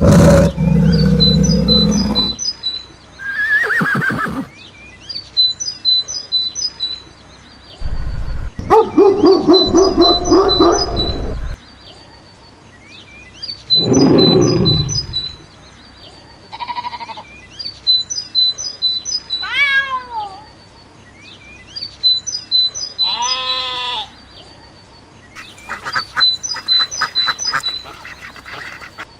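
A string of different animal calls, about eight, each a second or two long with short quiet gaps between them. Some are loud and low, one falls in pitch, and one near the end is a quick clicking chatter, all over a high chirping that repeats throughout.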